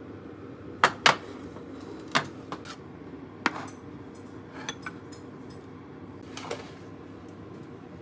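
Ceramic dishes and small cups knocking and clinking as they are set down and moved about: two loud clacks about a second in, then a few lighter, scattered ones, over a steady low hum.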